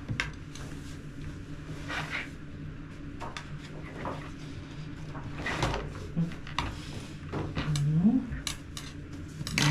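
Scattered light knocks and clicks over a steady low hum, with a short rising hum about eight seconds in.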